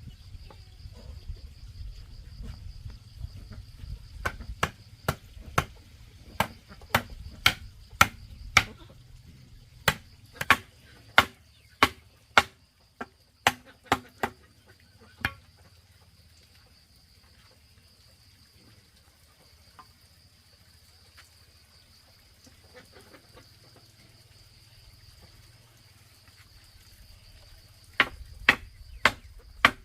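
Repeated sharp blows of a hand tool striking, about two a second in a run of some eleven seconds, then a short burst of four more near the end. Behind them, a steady high chirring of insects.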